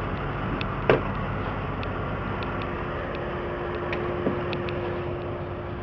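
Truck engine idling steadily, with a single sharp knock about a second in and a steady whine that comes in partway through.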